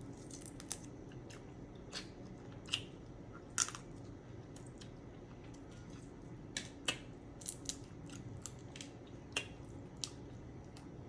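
Blue crab shell cracking and snapping as the crab is broken and picked apart by hand, mixed with chewing. The snaps come irregularly, a few sharper ones standing out.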